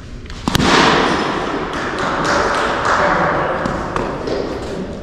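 A cricket bat striking a ball once, a sharp crack about half a second in, followed by several seconds of loud rushing noise.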